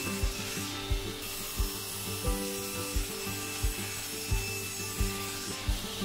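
Background music with a steady beat, about one and a half beats a second, over the hiss of a sliding table saw ripping a glued-up softwood panel.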